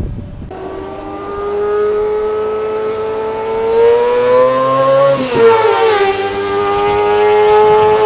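2012 Suzuki GSX-R 600's inline-four engine revving high as the bike accelerates toward the camera, getting louder as it comes. Its pitch climbs steadily, drops sharply about five seconds in, then holds.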